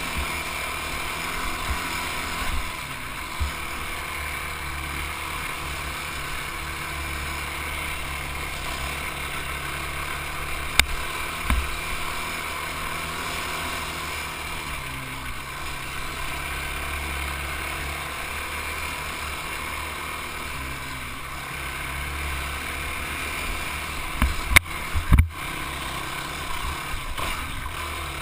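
ATV engine running steadily as the quad rides along a dirt trail. A few sharp knocks come through, a cluster of them a few seconds before the end.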